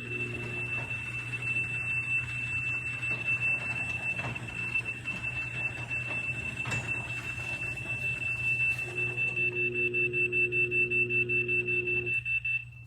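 LiftMaster garage door opener's high-pitched warning beeper sounding steadily over a low motor hum: the warning given while the door closes by remote command. The beeper stops shortly before the end.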